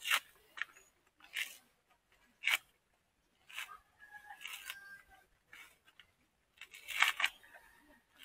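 Fibrous coconut husk tearing and cracking as it is pulled apart by hand, in short separate rasps roughly once a second, the loudest near the end.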